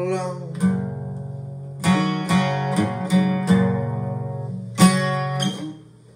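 Acoustic guitar strumming the closing chords of a song. A last sung note trails off at the start, and the final strum rings out and fades near the end.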